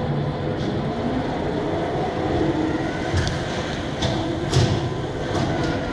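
Driverless automated guided carts running along a hospital transport tunnel: a steady running hum with a few sharp clicks and knocks.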